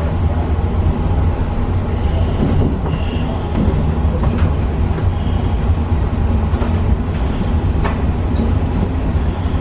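Long Island Rail Road commuter train running, heard from inside the passenger car: a steady low rumble with a few sharp clicks.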